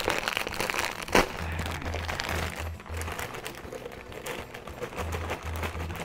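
Crinkling plastic bag and dry pork rinds (chicharrones) tumbling into a food processor's glass bowl: a run of small crackles and rustles, with one sharp snap about a second in. Background music with a low pulsing beat runs underneath.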